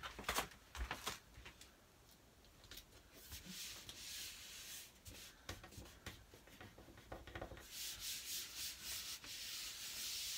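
A hand rubbing a suction-backed Sticky Dot poster flat against a door, a soft steady brushing that starts about three-quarters of the way in. Before it come scattered light taps and rustles as the poster sheet is handled and set in place.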